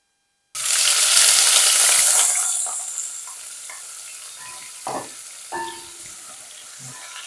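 Sliced red onions frying in hot oil in a pot: a loud sizzle starts suddenly about half a second in as the onions hit the oil, then eases to a steady frying hiss after a couple of seconds. A few short knocks of the ladle against the pot come as the onions are stirred.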